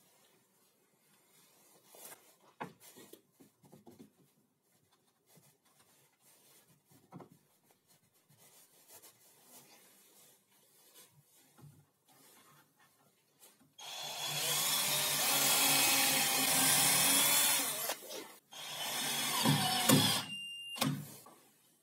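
Cordless drill running under load up through the crosscut sled's base into its clamped wooden fence: one run of about four seconds, a brief stop, then a second, shorter run. Light clicks and knocks of handling come before it.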